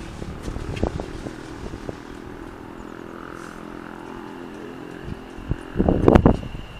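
Aventra electric multiple unit moving slowly, its traction equipment giving a low pitched hum whose tones shift as it goes. A thin high whine comes in near the end, and a loud thump comes just after.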